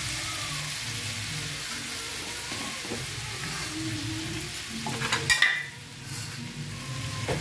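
Pumpkin, potato and pointed gourd pieces sizzling steadily as they fry in oil in a steel kadai, with a few short clicks and clatter about five seconds in.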